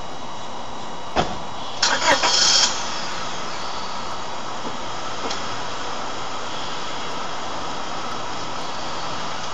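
A steady hiss of outdoor noise, broken by a sharp click about a second in and a short, louder clatter just after two seconds.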